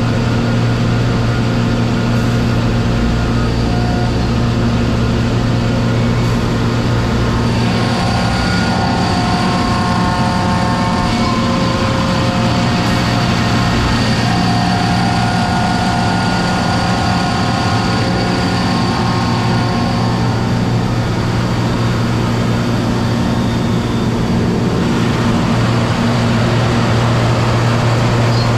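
1990 Kaeser DS200 150-horsepower, 480-volt air-cooled rotary screw air compressor running, with a steady, loud electric hum and machine noise.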